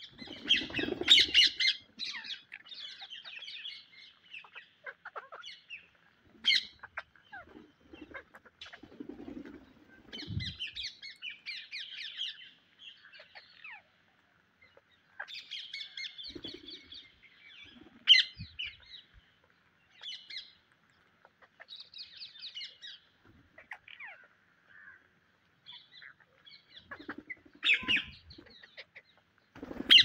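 A flock of rose-ringed parakeets calling: harsh, high squawks and chatter in bursts with short pauses, the loudest calls about a second in and near the end.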